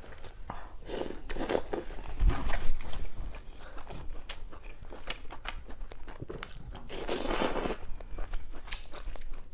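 A person eating close to the microphone: chewing and biting with many small crunchy clicks, and two longer noisy stretches, about a second in and again near the end.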